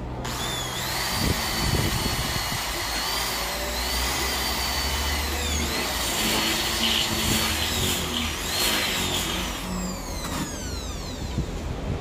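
Electric hand drill boring into an aluminium screen-frame profile. Its high whine dips in pitch several times as the bit bites, then falls away about ten seconds in as the drill winds down.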